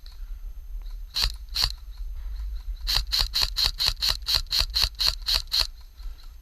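Airsoft gun firing: two single shots, then a quick string of about a dozen shots at roughly five a second, under a steady low rumble.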